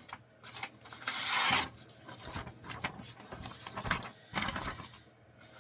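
A knife blade slicing through a sheet of copy paper in a test cut, a short hissing swish about a second in, with a fainter paper rustle near the end.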